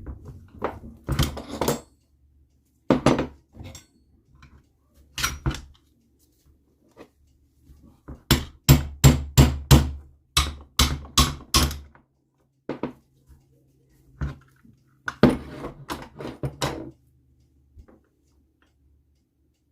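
Hammer blows knocking on the NSU Quickly engine's casing to split the second case half from the third. There are a few separate strikes, then a quick run of about ten taps, and a further cluster near the end.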